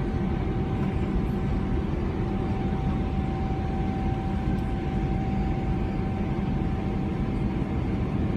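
Cabin noise inside a Boeing 777-300ER climbing after takeoff: the steady drone of its GE90-115B engines at climb power and the rush of air past the fuselage, with a steady whine held through it.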